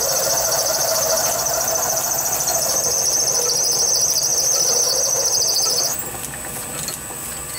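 A 6 mm twist drill squealing as it cuts into a spinning brass bar on a lathe, steady and high, stopping abruptly about six seconds in. The lathe keeps running quietly underneath.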